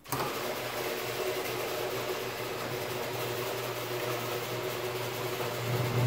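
Commercial LiftMaster garage door opener starting abruptly and running steadily with a motor hum and whir as it raises a sectional overhead door along its tracks; pretty quiet for its size.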